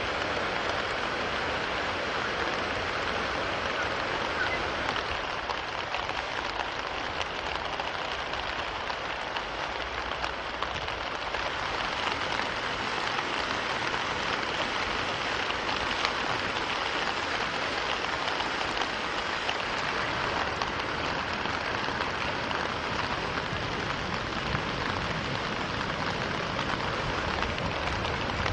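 Steady rushing water noise, continuous and even, with a slight dip about a third of the way in.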